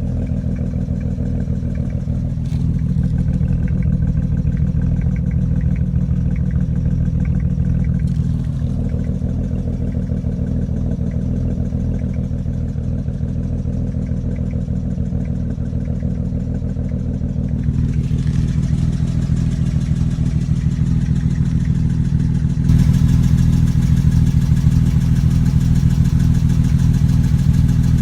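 BMW 335i's N54 twin-turbo straight-six running steadily with a misfire, which the scanner puts on cylinders 1 and 2 and which began once new downpipes went on. It gets louder in the last few seconds.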